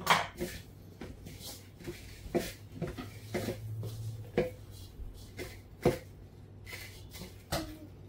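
Dough being kneaded by hand, folded and pressed: a series of irregular knocks and thuds, about one or two a second.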